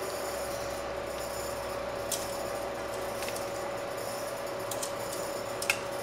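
Metal kitchen tongs clicking and clinking a few times against a glass baking dish and a cast iron Dutch oven as ribs are lifted and set down. A steady background hum runs underneath.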